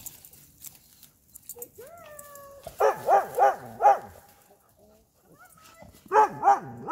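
Dog barking: four barks in quick succession about three seconds in, then three more near the end.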